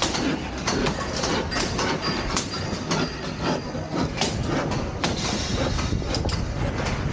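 Construction-site clatter: irregular knocks and clanks, several a second, over a steady low rumble.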